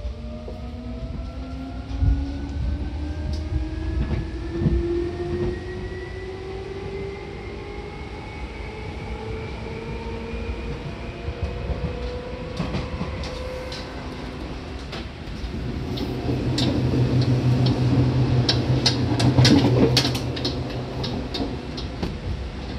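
Seibu 2000 series electric train accelerating: the traction motor whine climbs steadily in pitch over the first dozen seconds or so, with scattered clacks from the rails. In the last several seconds the low running noise grows louder, with a quick run of wheel clacks.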